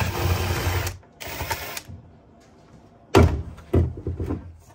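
Cordless impact driver running 10 mm mirror-mount nuts loose in two short bursts of rapid hammering. A few loud knocks follow near the end.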